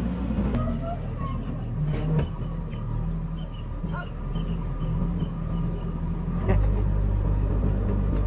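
JCB backhoe loader's diesel engine running steadily as its front bucket tips soil and rocks into a dump truck bed, with a few knocks; about six and a half seconds in the engine revs up and runs louder.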